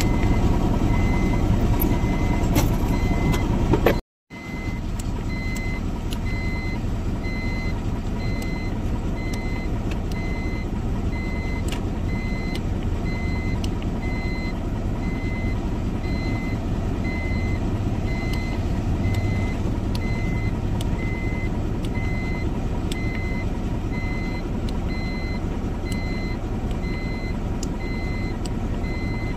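Ashok Leyland BS6 dumper truck's diesel engine running steadily, with an engine noise that the mechanic judges serious enough to open the engine. A repeating electronic beep sounds over it, and the audio cuts out briefly about four seconds in.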